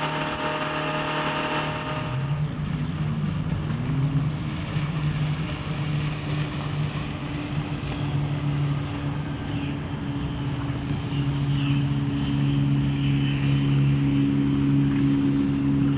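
Boat's Volvo Penta 5.7 GL V8 inboard engine running steadily under way. Its pitch wavers briefly a few seconds in, and it grows a little louder near the end.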